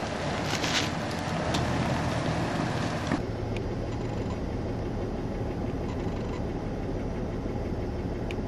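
Jeep Wrangler Rubicon engine running under load as it crawls over rocks, with a few sharp knocks. About three seconds in the sound cuts to a quieter, steady low hum of a distant off-road vehicle's engine.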